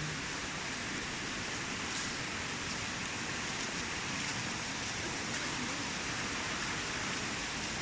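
Mountain stream rushing steadily over rocks, a continuous even hiss of running water.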